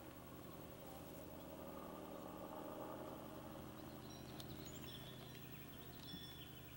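Faint outdoor ambience with a steady low hum, and a few faint, short bird chirps in the second half.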